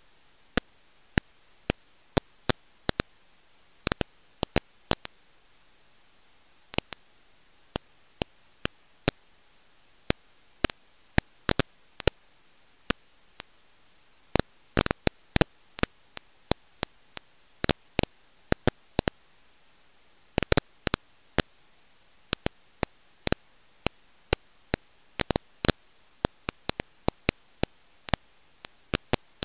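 Sharp clicks and pops at irregular intervals, sometimes in quick clusters, over a faint steady hiss. This is the crackle of a noisy old recording, with no other sound in it.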